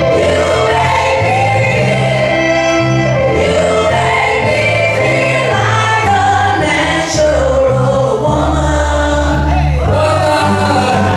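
Recorded gospel music with choir singing over a steady bass line, played at a party.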